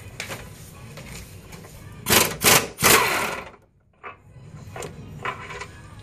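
Impact wrench hammering in three short bursts, about two to three and a half seconds in, breaking loose and spinning out a K-member-to-frame bolt.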